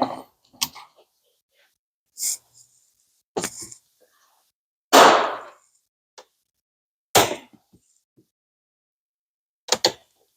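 A series of sharp knocks and clanks, about seven at irregular intervals with silence between, from hand tools and metal parts being handled while working on the engine.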